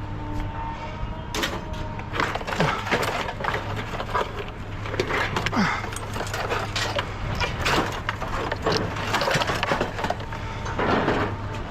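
Scrap being handled: irregular knocks, clatter and scraping, over a steady low hum.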